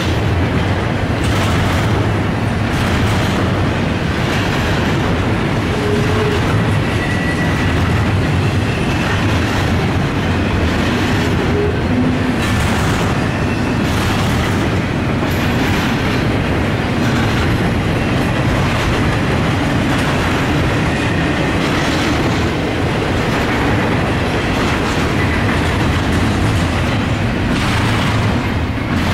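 Norfolk Southern double-stack intermodal freight cars rolling past in a steady loud rumble, with repeated clickety-clack of the wheels over rail joints.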